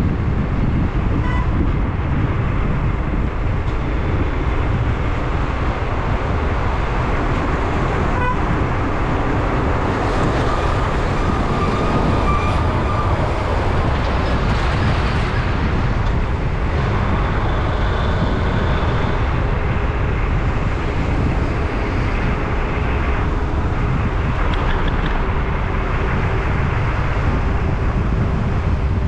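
Highway traffic heard from a moving vehicle: a steady low rumble of engine, tyres and wind, with vehicle horns sounding briefly a few times.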